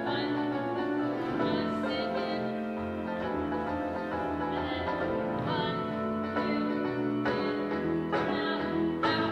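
Orchestral show music playing steadily, with sustained notes and a few sharp accents.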